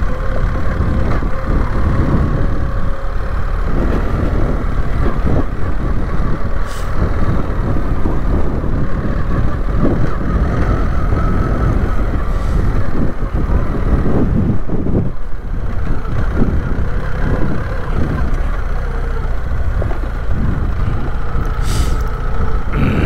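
BMW R 1300 GS boxer-twin engine running as the bike rides along a dirt trail, under an uneven low rumble. A few sharp ticks come through, at about seven, twelve and twenty-two seconds in.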